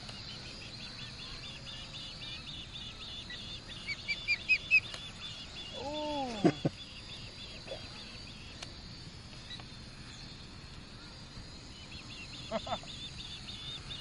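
Osprey calling: a quick run of four sharp, high chirps about four seconds in, over steady background insect chirping, with a short falling call around six seconds.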